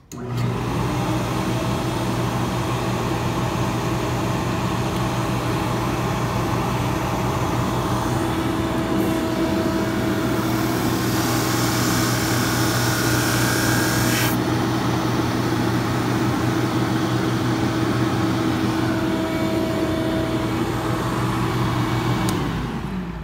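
Grizzly G0459 drum sander and a Ridgid shop vacuum switching on together and running with a steady hum. From about 8 to 14 seconds in, a harsher high hiss is added as a thin aluminum sheet is fed through and sanded by the 400-grit hook-and-loop roll. Near the end the machines are switched off and wind down.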